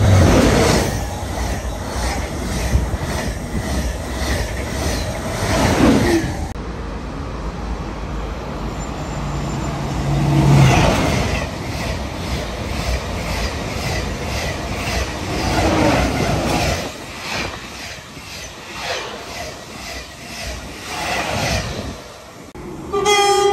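A TGV high-speed train passes through the station at speed, with a rush of air and a regular clatter of wheels over the rail joints. Then a double-deck RER D commuter train (Z 20500) runs past with more wheel clatter. A short horn blast sounds near the end.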